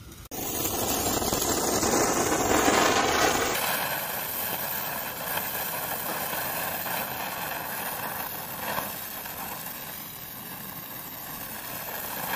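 Hand-held 'Barbie candle pencil' firework (a pencil sparkler) hissing steadily as it burns and sprays sparks. It starts suddenly as it catches and is loudest over the first few seconds, then runs on more evenly.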